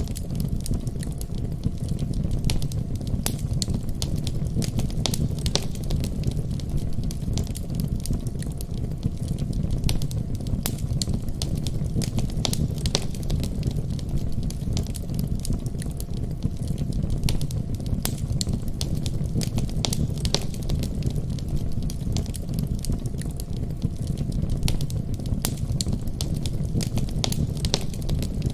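Wood fire in a fireplace crackling, with frequent sharp pops and snaps scattered irregularly over a steady low rumble.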